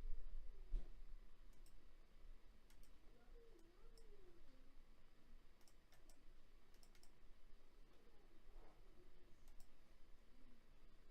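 Faint, scattered clicks, about eight spread irregularly over several seconds, over a low steady hum.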